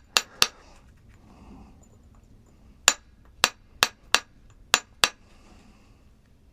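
Sharp tapping knocks of a hard object striking another hard object: two quick ones at the start, then six more spread over about two seconds a little before the middle.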